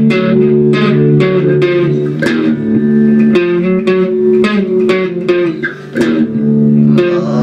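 Guitar playing a rhythmic riff of repeatedly plucked notes and chords.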